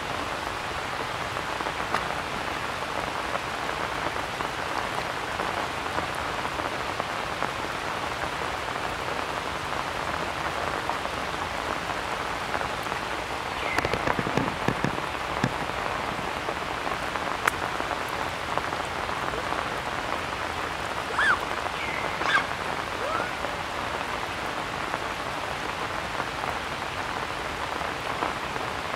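Steady rain falling, a constant even hiss, with a few brief high calls about two-thirds of the way through.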